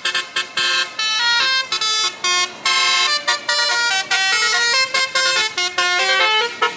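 A bus's 'Telolet Basuri' multi-tone musical air horn playing a quick melody, stepping from note to note with short breaks between phrases.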